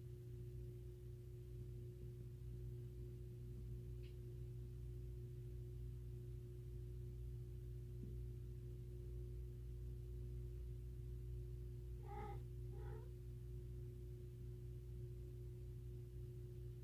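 Steady low hum with a faint steady tone over it; about twelve seconds in, two short pitched calls come half a second apart.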